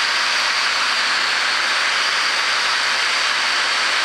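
Steady drone and hiss of a Piper PA-28's piston engine, propeller and rushing air, heard inside the light aircraft's cockpit.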